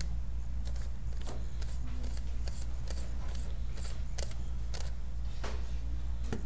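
Irregular small clicks and ticks as a vintage metal camera lens is handled and its aperture ring is turned down to its smallest opening, over a steady low hum.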